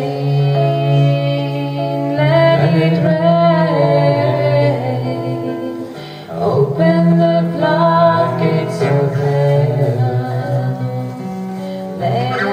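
Devotional song performed live: held, slow singing over a steady low harmonium drone, with a plucked acoustic guitar. The singing dips briefly about halfway through and then resumes.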